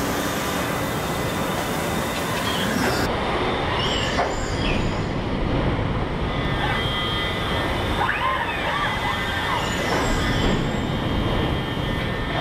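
Car body-assembly line noise: a steady din of industrial robot arms and machinery, with a few brief high squealing whines near the middle.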